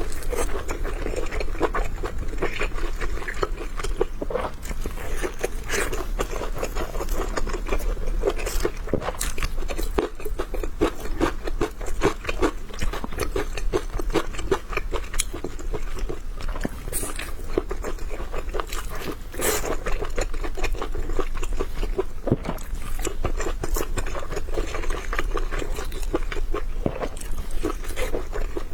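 Close-miked chewing of large steamed dumplings: dense, irregular wet smacks and clicks of the mouth working through soft dough and filling.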